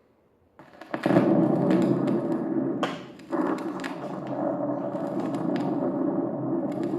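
A Halloween sound-effects LP playing through a Crosley Collegiate turntable: a loud, dense rushing noise with no deep bass, starting about half a second in and dipping briefly near three seconds. Clicks and pops from the dusty vinyl are scattered through it.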